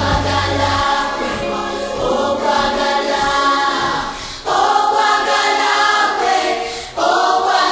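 Song with choir singing. The low bass drops out about a second in, and new sung phrases come in sharply at about four and a half and about seven seconds.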